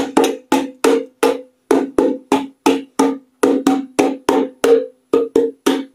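Ukulele strummed in a steady rhythm, about three short strokes a second, each on the same chord and dying away quickly; the strumming stops at the end.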